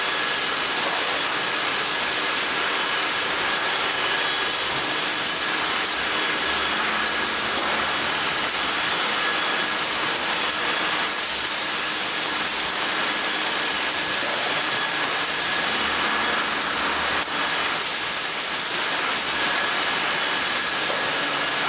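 Packaging-line machinery running: conveyors and packing machines giving a steady mechanical din with a faint steady high whine.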